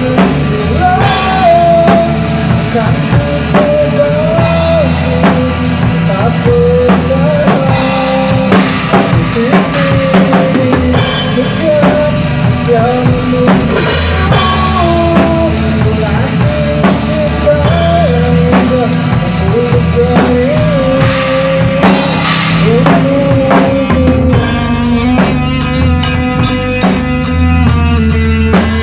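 Acoustic drum kit played along to a rock backing track, with a sliding lead melody on top. Kick, snare and cymbals hit steadily, with big cymbal crashes about fourteen and twenty-two seconds in.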